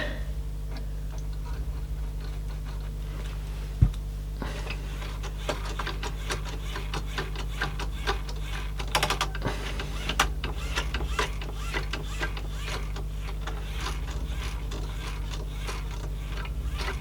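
Small irregular clicks and scratchy rubbing from hands working on a CD changer's opened mechanism, over a steady low electrical hum. A single sharper click comes about four seconds in, and the clicking grows busy after it.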